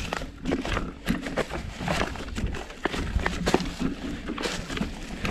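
Surly Krampus 29+ mountain bike jolting down a rocky trail: irregular knocks and clatters from the tyres, chain and frame hitting over the rocks, over a low rumble.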